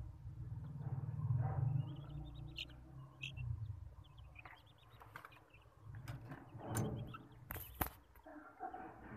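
Young Australorp chickens giving short high peeps, among scattered sharp clicks and knocks, over a low rumble that fades after the first few seconds.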